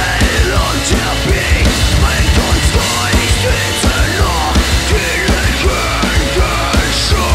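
Live rock band playing hard, driving music: drum kit, distorted electric guitars and bass, with the singer shouting into the microphone.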